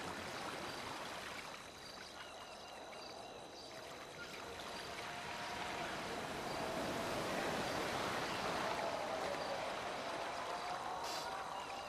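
A steady rushing noise like flowing water, with faint high chirps about two seconds in and again near the end.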